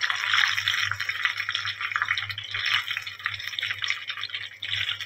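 Chicken pieces frying in very hot oil in a kadai during their second fry for crispness, a steady crackling sizzle.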